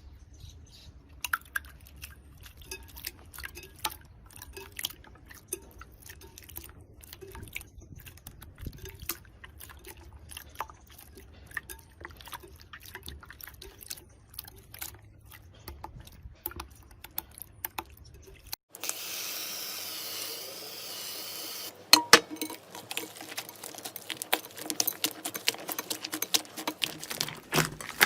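Slime being squished and poked by hand, making a run of small, sticky, wet pops and clicks. About two-thirds of the way through there is a steady hiss lasting about three seconds. Then the popping and clicking resumes, with a few louder snaps.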